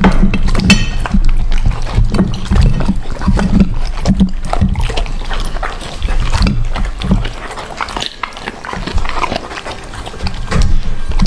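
A pet chewing and smacking on chicken gizzards: irregular wet chomps and crunching clicks.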